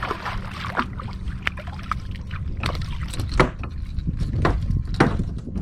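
Water sloshing against a kayak hull over a steady low rumble, with scattered sharp knocks and clicks at irregular moments.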